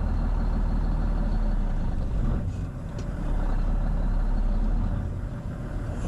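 Semi truck's diesel engine running under load with a steady low rumble as it strains to pull the loaded trailer out of a snowdrift, easing briefly between about two and three seconds.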